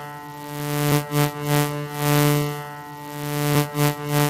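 Background music: a held low synthesizer tone with a repeating pattern of short beats.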